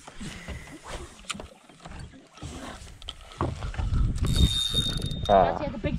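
A small fishing boat on the water: uneven low rumbling with scattered knocks against the hull, and a short high steady tone about four seconds in.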